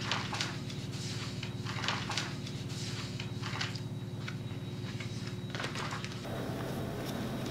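Sheets of paper rustling and being handled in short, irregular scratchy strokes over a steady low hum; the background changes to a rougher, noisier hum about six seconds in.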